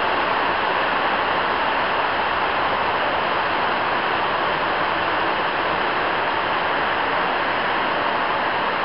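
Heavy rain drumming steadily on the shed roof, a loud, even hiss with no breaks.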